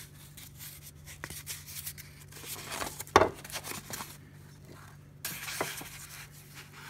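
Cardboard rustling and crinkling as it is folded around a wooden hammer handle held in a bench vise, with a sharp knock about three seconds in and a burst of rustling a couple of seconds later.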